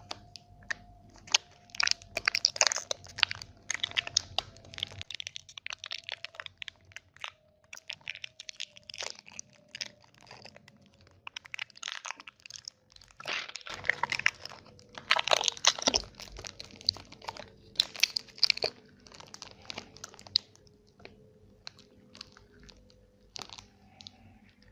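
Close-miked crunching bites and chewing of chocolate: many sharp cracks that come in dense clusters, with quieter chewing between them.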